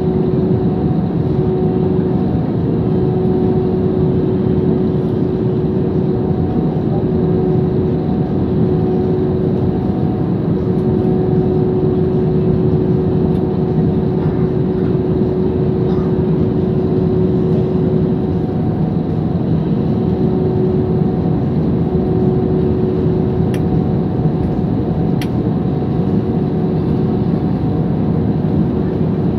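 Airbus A320 jet engines heard from inside the cabin at low taxi power: a steady, even rumble with a constant hum tone running through it as the airliner rolls slowly along the runway.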